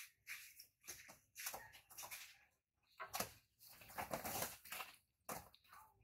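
Young monkeys wrestling and scrambling on a woven plastic mat: irregular short rustling scuffs of hands and feet on the mat, several a second with gaps between them, loudest a little past the middle.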